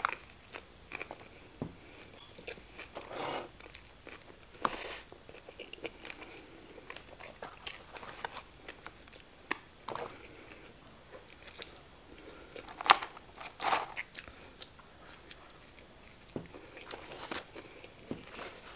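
Close-up eating sounds of a person biting into and chewing a Big Mac: scattered wet mouth clicks and a few louder bites, the loudest about 13 seconds in.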